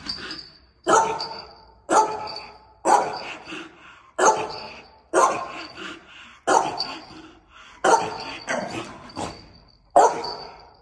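A search dog barking repeatedly at a gap in the wall, about one bark a second, as a search dog gives a bark indication at a find. Each bark echoes and fades in the empty hallway.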